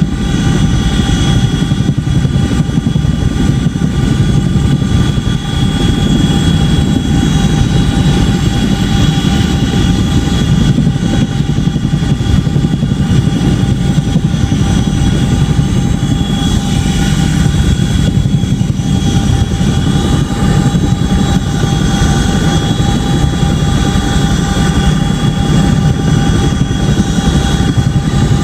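Boeing CH-47D Chinook tandem-rotor helicopter running, loud and steady: the rotors beat heavily, and the twin turboshaft engines give a steady high whine over them.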